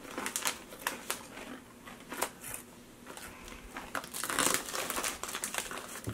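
Potato chips being chewed: scattered crisp crunches, with a denser stretch of crinkly rustling about four seconds in.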